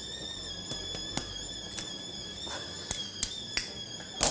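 A scattered series of sharp clicks from a small object being worked in the hands, ending in a louder snap near the end. A faint, steady high whine runs underneath.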